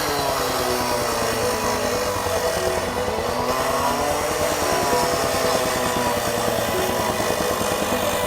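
Small gasoline engine of construction power equipment running steadily, its pitch wavering up and down.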